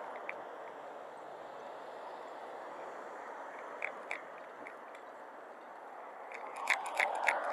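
Steady background noise of outdoor town ambience, with two sharp clicks a little before the middle and a quick run of about five sharp clicks or taps near the end.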